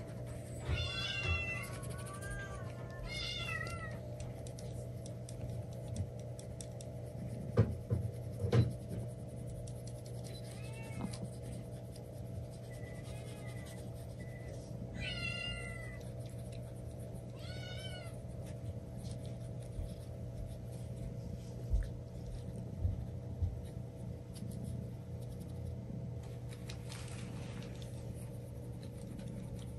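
Domestic cat giving several short, high-pitched meows scattered through the half-minute, with two sharp knocks a third of the way in that are the loudest sounds.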